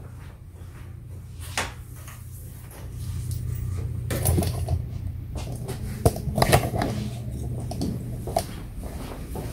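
Scattered knocks and clicks of objects being handled, loudest twice a little after the middle, over a steady low hum.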